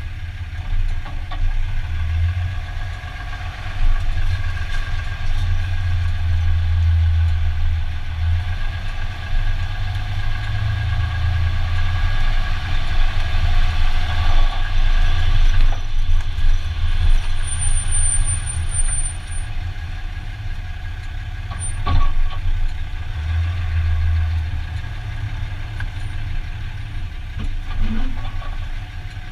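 2015 Dodge Ram 2500 pickup running at parking-lot speed with a steady low rumble and a few steady mid-pitched tones, the drivetrain noise the owner is recording. A single sharp knock sounds about two thirds of the way through.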